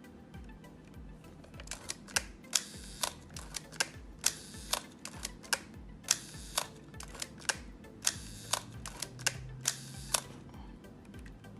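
Canon 7 rangefinder's cloth focal-plane shutter being fired again and again, each release a sharp click, with the film advance wound between shots, about twenty clicks at uneven spacing. The shutter is working smoothly across its speeds.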